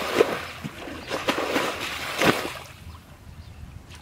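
Hands splashing and scooping in shallow muddy water, a run of wet splashes that dies down about two and a half seconds in.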